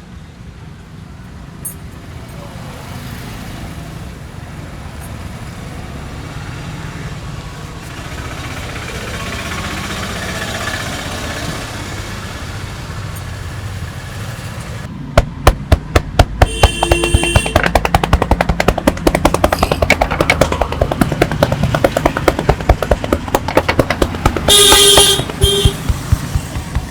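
Hands rapidly tapping and slapping on a back in a barber's massage, a fast, even run of sharp strikes about five a second that starts about halfway through. Street traffic noise runs underneath, and a vehicle horn honks briefly and then more loudly near the end.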